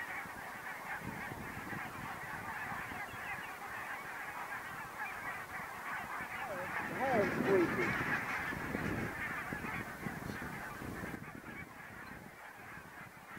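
A large flock of geese calling overhead: a dense chorus of many overlapping honks. It grows loudest about seven to eight seconds in, where a few nearer calls swoop down in pitch, then fades a little near the end.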